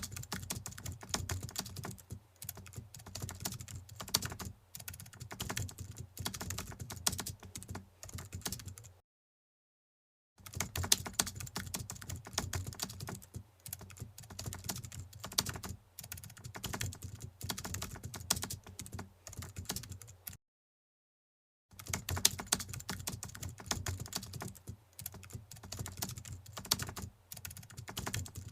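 Rapid computer-keyboard typing, a dense run of keystroke clicks that stops dead for about a second and a half twice, about nine seconds in and again about twenty seconds in, then resumes.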